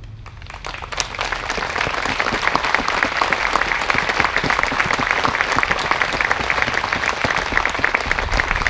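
Crowd applauding, starting about half a second in and building to a steady level within two seconds.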